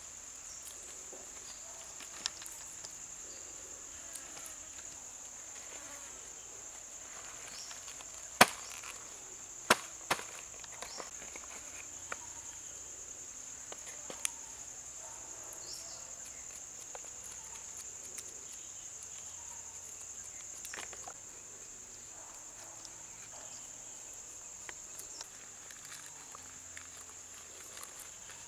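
Insects chirring steadily in one high-pitched tone, with a few sharp clicks and taps over it; the loudest clicks come about a third of the way in.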